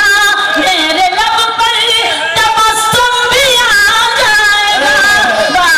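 A woman singing a ghazal into a microphone, a long melodic line with held, wavering notes.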